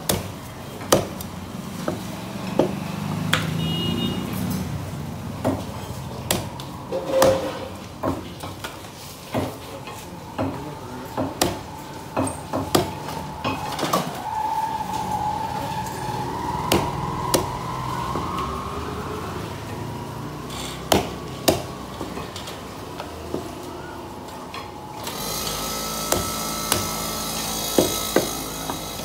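A large knife chopping through a scaled sea bass fillet and striking a wooden log chopping block: irregular sharp knocks, at times a few a second. A louder steady background noise joins for a few seconds near the end.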